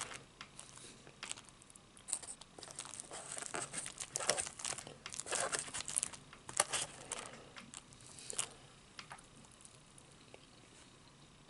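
Takeout food packaging crinkling and rustling as it is handled, in clusters of short crackly bursts that are busiest from about two to eight and a half seconds in.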